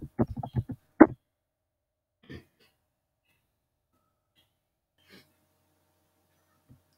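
A man's short sigh or exhale close to the microphone about a second in, then a few faint breath sounds separated by long near-silent gaps.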